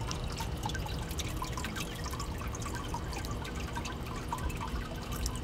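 Water trickling and dripping steadily, with many small splashes over a low rumble.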